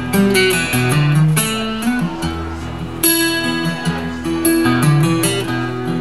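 Steel-string acoustic guitar strummed in an instrumental passage between sung lines, chords rung out over changing bass notes.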